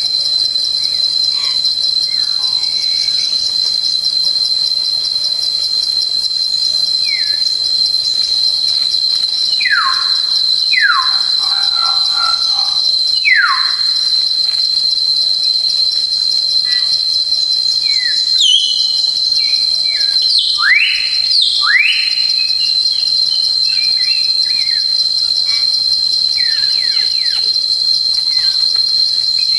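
A steady, high-pitched insect trill runs throughout. Over it a few whistled calls, likely birds, sound in gliding notes: several falling notes in the first half and a couple of rising ones about two-thirds of the way in.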